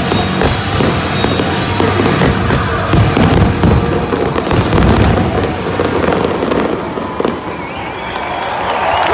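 Fireworks show: rapid bursts and crackling explosions in a dense barrage that thins out in the last couple of seconds, with music over the stadium loudspeakers underneath.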